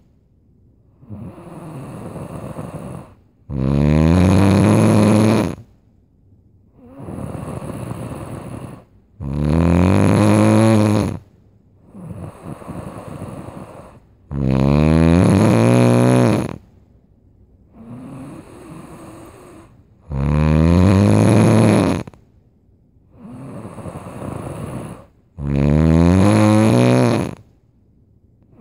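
A sleeping person snoring loudly in a steady rhythm. There are five loud, buzzing snores about five and a half seconds apart, each lasting about two seconds, with a softer breathy breath between them.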